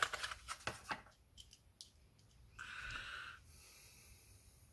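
A few soft clicks and crinkles of a diecast car's plastic blister card being handled, then a short breath through the nose about three seconds in.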